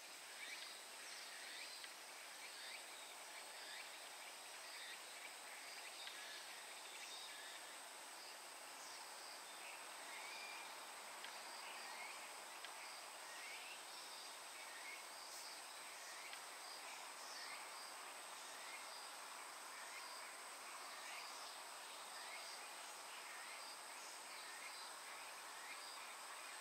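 Faint outdoor ambience: a steady high-pitched insect drone, with many short scattered chirps.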